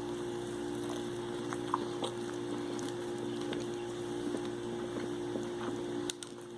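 A person chewing a bite of a breaded chicken sandwich, with soft chewing noise and scattered small clicks, over a steady low electrical hum.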